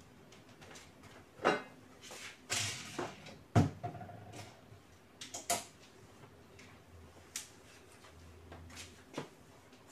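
Cleaning with a trigger spray bottle and a cloth: a few short hissing sprays, rubbing, and scattered knocks of the bottle and other things set down on a cabinet top, the sharpest knock about three and a half seconds in.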